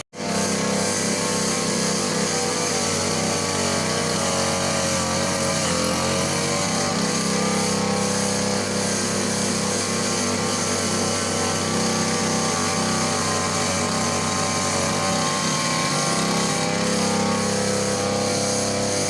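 Petrol brush cutter (grass-cutting machine) engine running steadily, holding an even speed with only small wavers in pitch.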